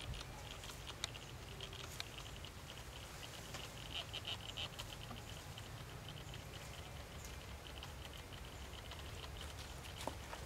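Faint outdoor ambience: a steady, rapidly pulsing high chirring, with a few light clicks scattered through it and a low rumble underneath.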